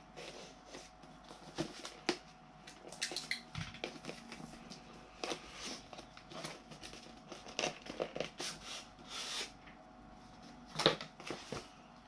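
Cardboard packaging being opened and handled: a box and its inner tray slid apart, with paper inserts and cards shuffled. The sound is a run of short rustles, scrapes and light clicks, with one sharper click near the end.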